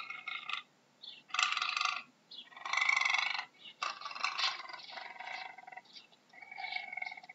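An animal calling: a series of about five or six pitched calls, each under a second or so long, with short gaps between them.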